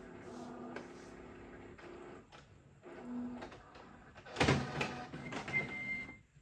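Canon Pixma Pro9500 Mark II photo printer starting a print job: its motors whir in short runs at a steady pitch, stopping and starting, with a louder clatter about four and a half seconds in and a brief high tone near the end.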